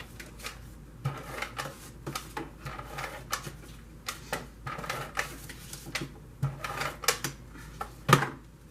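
Irregular light taps, clicks and rustles of paper and cardstock being handled and adhesive applied while a card panel is stuck down, with one louder tap near the end.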